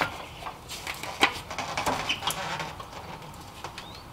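Scattered light plastic clicks and taps as a wiring-harness connector and its clip are unclipped from the radiator cooling fan motor, with a short rising squeak near the end.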